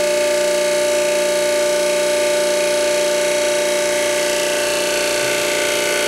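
Electric power unit of a Custom Machine D165 hydraulic hose crimper running with a steady hum while the dies close on a half-inch hose fitting during a crimp.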